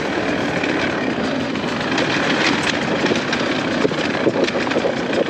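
Dirt bike engine running while the bike is ridden at race pace, blended into a steady, dense rushing noise.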